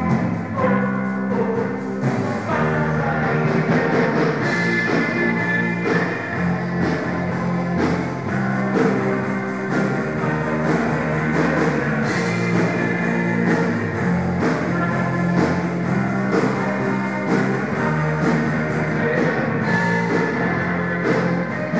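Rock band playing live on electric guitar, electric bass and drum kit, with steady drum hits under sustained guitar notes, recorded during a soundcheck.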